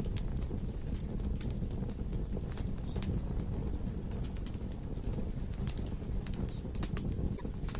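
Wood logs burning in a fireplace: irregular sharp crackles and pops, several a second, over a steady low rumble of the flames.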